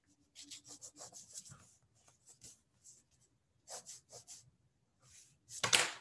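Pencil sketching on paper: quick, light strokes scratching in short clusters, with a longer, louder stroke near the end.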